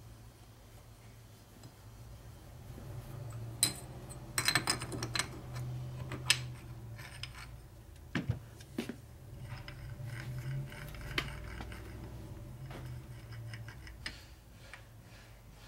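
Scattered sharp clicks and clinks of metal as a Harley-Davidson four-speed transmission's ratchet-top lid is turned and worked by hand, starting about three seconds in and thinning out near the end, over a low steady hum.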